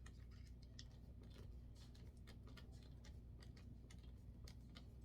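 Faint, irregular light clicks and ticks of drying-rack parts and screws being handled, over a steady low hum.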